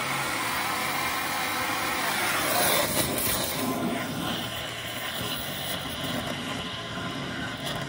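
Oxy-acetylene torch flame hissing steadily as it heats a rusted leaf-spring bolt and nut to get the nut red hot and free it.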